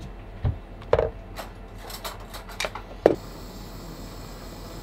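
Small hand tools and wire parts clicking and clinking while an electrical jumper lead is made up, about half a dozen sharp knocks in three seconds with the loudest near the end, then only a steady low hiss.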